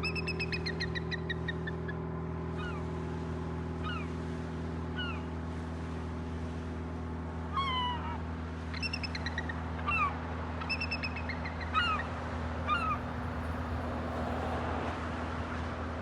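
Seagull giving repeated mewing cries in a squabble with an eagle: a quick run of descending calls at the start, then single short cries sliding down in pitch every second or so. A steady low hum runs underneath.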